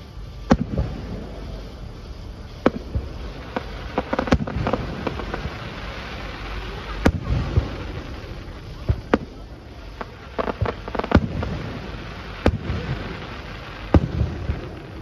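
Fireworks display: about a dozen sharp bangs of shells bursting overhead, some coming in quick runs, each trailing off in a low echo.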